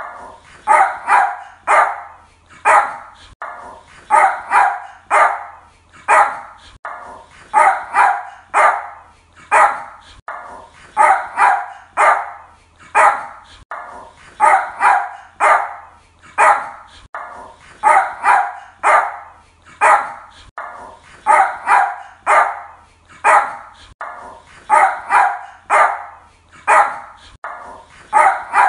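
Yorkshire terrier barking: sharp, high barks in quick runs of two or three, again and again without a break.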